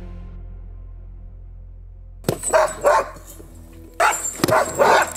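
Background music fading out, then sled dogs barking about two seconds in: quick runs of loud barks, roughly three a second, with a short break in the middle.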